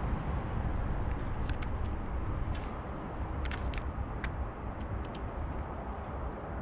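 A blue jay pecking and picking over peanuts at a plastic feeder dish, heard as a scatter of short, sharp clicks and taps from about a second and a half in, over a steady low rumble.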